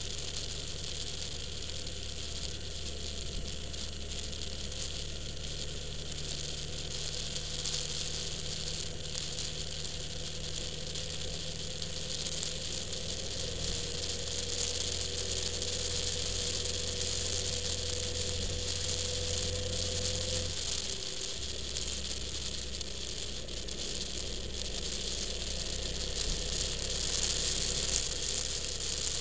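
Car engine running steadily while driving, heard from inside the cabin, with a continuous hiss of road noise. About two-thirds of the way through, the engine note drops suddenly.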